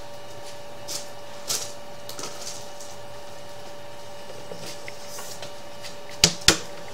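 Sewer inspection camera rig with a steady electrical hum, a few light clicks, and two sharp knocks close together near the end as the camera's push cable is drawn back through the cast iron drain line.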